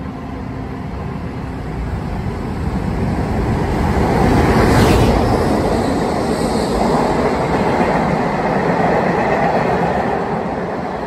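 An EF510 electric freight locomotive with a second, unpowered EF510 and a string of empty Koki container flatcars passing through a station: a rumble of wheels on rail that builds to its loudest about five seconds in as the locomotives go by, then carries on as the wagons roll past and eases off near the end.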